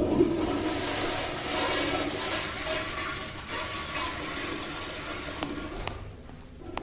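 Rushing, water-like noise that fades away over several seconds, with a few faint clicks near the end.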